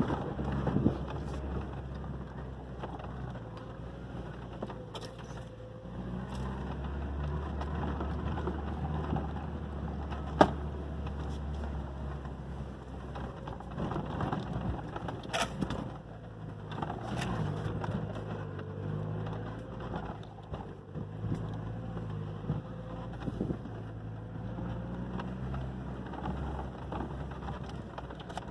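SsangYong Actyon Sports 4WD pickup driving slowly along a rough trail: the engine runs low with its pitch shifting, and scattered knocks and rattles come from bumps, a sharp one about ten seconds in.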